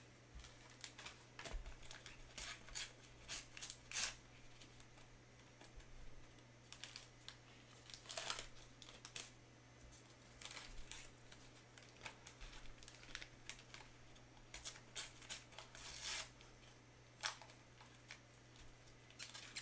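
Topps sticker packets being torn open and their wrappers and stickers handled: faint, irregular crinkles and rustles, with a steady low hum beneath.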